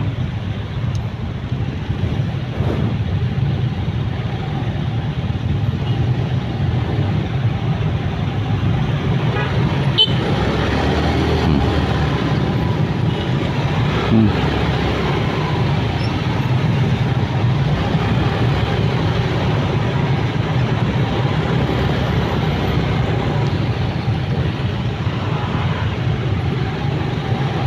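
Dense road traffic heard from a motorcycle in a jam: many small scooter and motorcycle engines idling and creeping, with cars among them, making a steady low hum. A brief horn toot sounds about fourteen seconds in.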